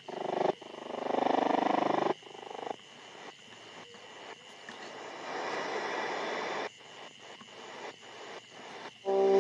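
SIHUADON R-108 DSP shortwave receiver tuning across the 31 m band between stations: static and hiss cut into pieces by brief mutes as it steps frequency, with a buzzy signal in the first two seconds and a faint steady high tone underneath.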